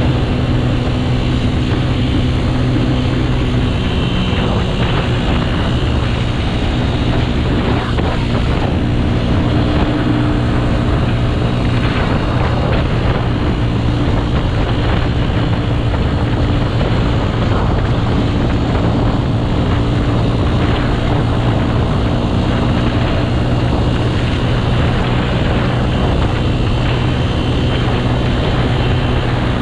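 Motorcycle engine running at a steady cruising speed, its pitch almost unchanged throughout, over a constant rush of riding noise.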